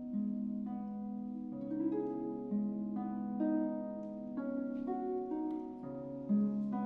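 Concert harp playing a slow arpeggiated melody: plucked notes about two a second, each ringing on over long-held low notes.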